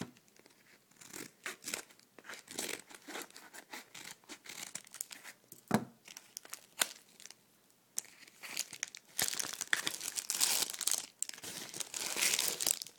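A mailed package being opened by hand: packaging tearing and crinkling in irregular bursts, with a sharp click about six seconds in, getting louder and busier from about nine seconds in.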